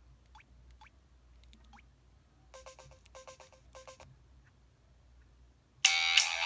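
Alert tones from an EV-W250 'Black Cube' mobile phone's speaker: three faint rising bleeps, then three short buzzy beeps, and near the end a loud ringtone melody starts.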